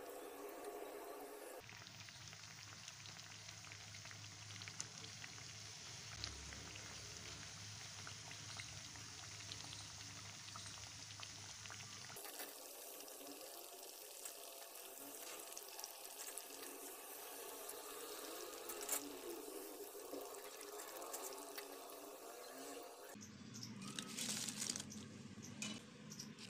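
Gram-flour pakoras deep-frying in hot oil: a steady sizzle full of small crackles, with a few sharper clicks and taps near the end.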